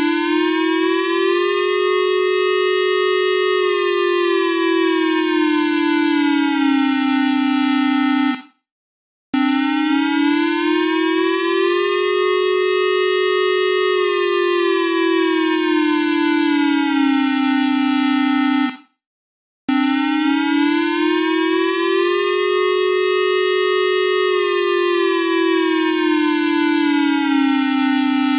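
Civil-defence warning siren sounding as an earthquake alarm: three long wails, each rising in pitch, falling back and holding low for about nine seconds before cutting off, with a second's break between them.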